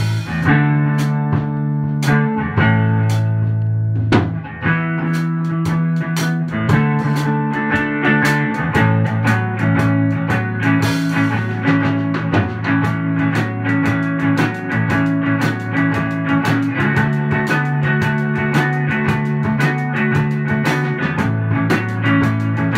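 Electric guitar, a Fender Stratocaster played through a Fender Princeton Reverb amp, jamming with a drum kit: held notes and chords over steady drum and cymbal hits.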